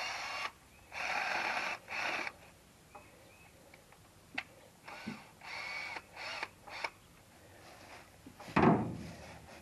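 A drill boring a tap hole into a maple trunk, run in several short bursts. A loud thump comes near the end.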